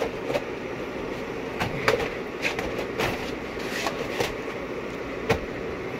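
Vinyl siding panel being worked into place by hand: scattered plastic clicks and knocks, the sharpest knock about five seconds in.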